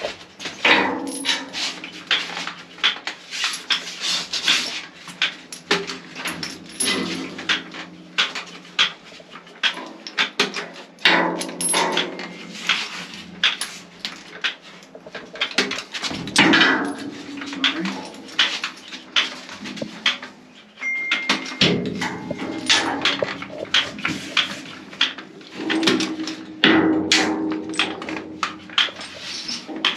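Irregular knocks, clicks and clatter of hands-on installation work, with a few short whining tones mixed in.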